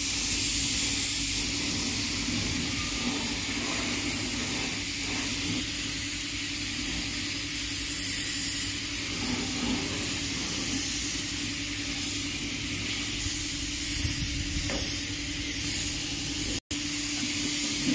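Compressed-air spray gun hissing steadily as it sprays polish onto wooden furniture, over a steady low hum.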